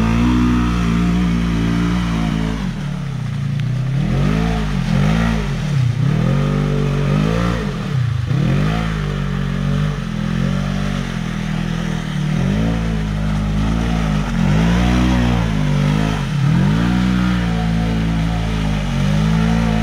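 Side-by-side UTV engine revving up and down over and over as it spins donuts in mud, its pitch rising and falling every couple of seconds. Under it runs a steady low engine hum from a second machine idling close by.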